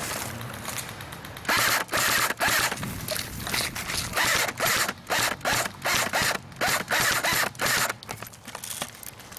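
Airsoft electric gun firing a string of short bursts, its gearbox giving a rapid mechanical rattle with each pull of the trigger.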